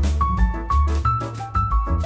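Background music: a melody of short held notes over a heavy bass line and a steady beat.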